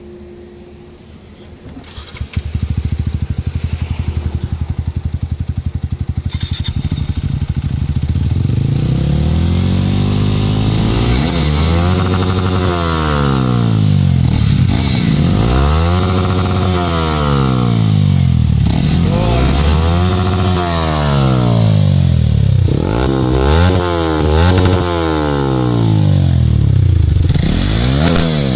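Single-cylinder sport motorcycle with an aftermarket exhaust, starting about two seconds in and idling. From about eight seconds in it is revved again and again, the engine note rising and falling with each blip.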